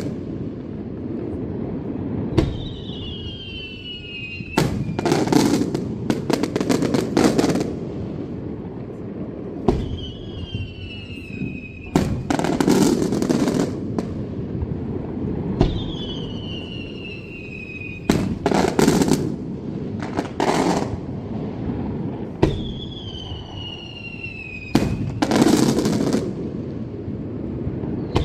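Daylight fireworks going off in repeated rounds, about four in all. Each round is a sharp bang, a falling whistle for about two seconds, another bang, then a rapid rattle of cracks lasting a second or two.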